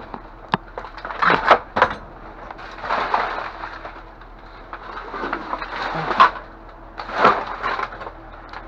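Rummaging through discarded lamps and lamp parts in a dumpster: irregular knocks, clatters and scraping of objects being moved about, with the loudest knocks about one and a half seconds in and again past six seconds.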